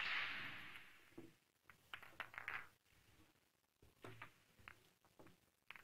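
A short burst of applause that fades within about a second, followed by a few light clicks of pool balls being gathered off the table.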